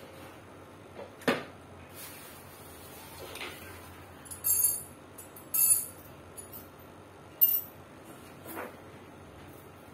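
Several separate clinks and knocks of hard objects being picked up and set down: a knock a little over a second in, then a few sharper clinks around the middle and later, the loudest with a brief metallic ring.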